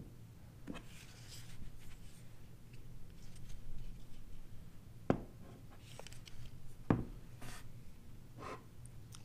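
Hands handling and turning a Glock pistol, with light rubbing and scuffing and two sharp clicks, one just past halfway and a louder one about two seconds later.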